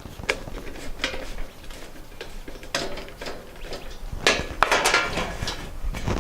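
Irregular clicks and metallic clatter of hand tools and hardware being handled while fitting electrical boxes, with the loudest cluster of sharp clicks about four to five seconds in.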